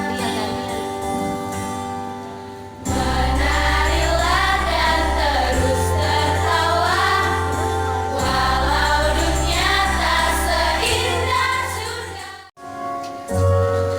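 Music: a choir singing with instrumental accompaniment. A held chord fades out, then the singing comes in with a moving bass line. The music breaks off abruptly near the end and starts again.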